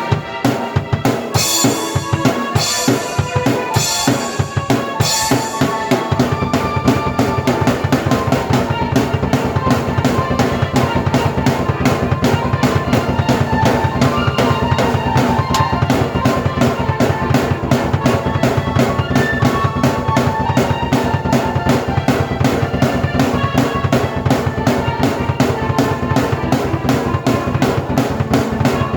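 Drum kit and keyboard played together in an up-tempo instrumental. Heavy crash-cymbal accents come first, then about six seconds in a fast, driving beat starts, with a fuller low end under held keyboard notes.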